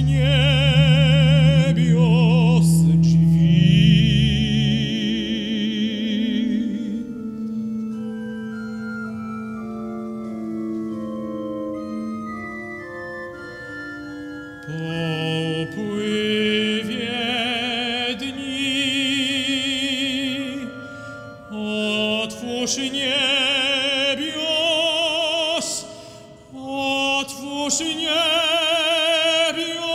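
Operatic tenor singing a sacred song with organ accompaniment, the voice carrying a wide vibrato. The voice rests for several seconds in the middle while the organ plays on alone, then comes back in.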